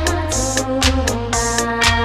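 Instrumental Taiwanese oldie played on electronic keyboard with band backing: sustained melody notes over a steady bass line and a regular drum beat.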